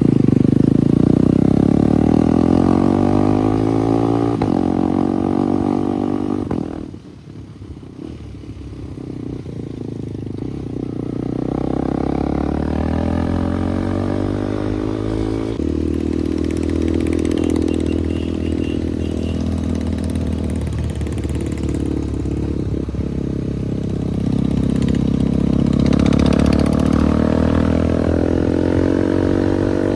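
KTM Duke 390 Gen 3's single-cylinder engine running through an aftermarket SC Project exhaust, loud, with its pitch sweeping up and down as it is revved. About seven seconds in the level drops sharply, then climbs back as the revs rise again, and it swells once more near the end.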